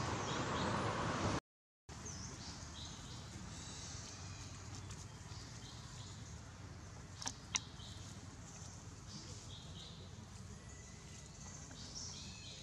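Outdoor forest ambience: a monkey rustling through dry leaf litter, with faint high chirping in the background. The sound cuts out briefly about a second and a half in, and two sharp clicks come close together about seven seconds in.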